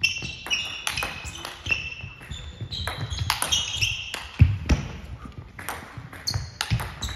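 Table tennis balls clicking against bats and tables in a large hall, with a few short high squeaks of sports shoes on the floor and one heavier thump about four and a half seconds in.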